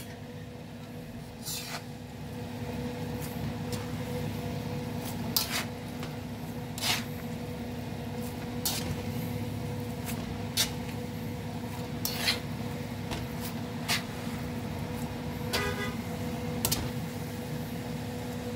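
Metal spatula scraping and tapping against a pan of noodles, about ten short strokes a second or two apart, over a steady low hum.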